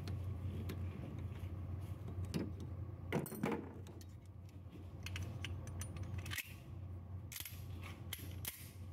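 Scattered small metal clicks and taps of a Beretta 92X pistol being handled and reassembled by hand: a compensator worked onto its extended guide rod with pliers, then the slide fitted back onto the frame. A steady low hum sits underneath.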